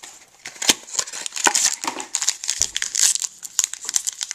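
Foil trading-card pack wrapper crinkling and tearing as it is opened by hand: a dense, irregular run of sharp crackles that starts about half a second in.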